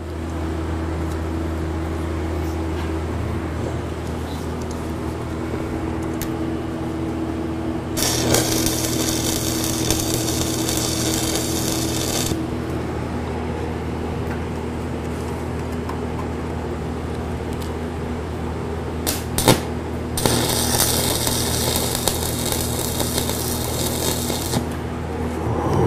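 Stick (SMAW) arc welding with 3/32-inch 7018 electrodes on steel: two tack welds, each a steady crackling arc lasting about four seconds, the first about eight seconds in and the second about twenty seconds in, with a couple of sharp ticks just before the second as the rod is struck. A steady low hum runs underneath throughout.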